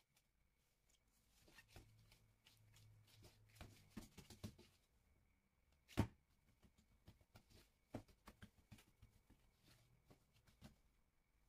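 Faint soft taps and rustling of gloved hands handling and pressing risen yeast dough on a floured silicone baking mat, with one sharper tap about six seconds in.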